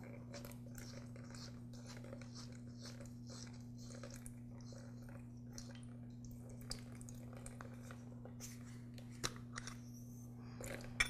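Faint small clicks and taps of hands and tools handling a lawnmower carburetor while its float bowl is taken off, with a couple of sharper clicks near the end. A steady low hum runs underneath.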